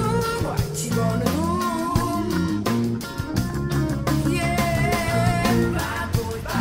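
Background music: a song with guitar, a steady drum beat and singing.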